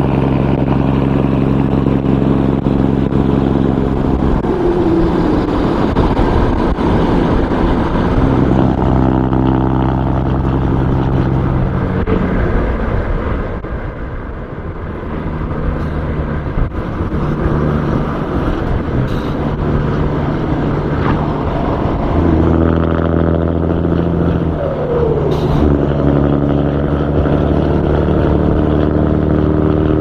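DAF XF105 truck's six-cylinder diesel through an open side pipe, cruising at highway speed with a steady deep drone over road and wind noise. The drone's pitch shifts up and down several times as the throttle changes, with a couple of short glides.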